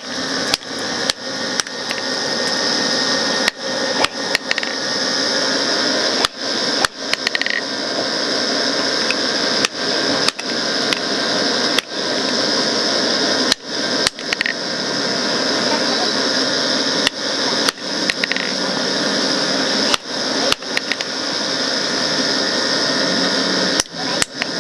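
Hand hammer striking a red-hot steel hoe blade on an anvil: irregular blows about one a second, over a steady background noise.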